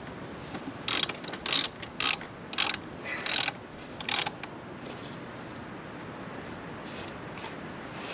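Ratchet wrench clicking in about six short strokes over a few seconds, working the rear-axle chain adjuster during a chain slack adjustment.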